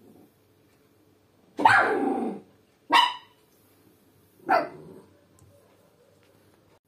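A dog barking three times: a longer bark, a short sharp one about a second later, and a falling bark about a second and a half after that.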